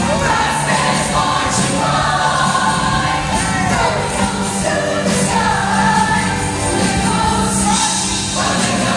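Show choir singing in full voice over an amplified instrumental accompaniment with a steady beat, the voices holding long notes and sliding down in pitch about four seconds in.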